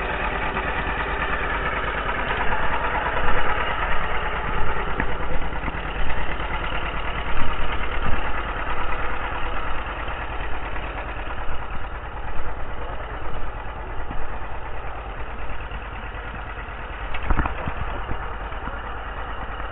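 Engine of old farm equipment running steadily, its loudness swelling and dipping unevenly through the middle, with a single sharp knock near the end.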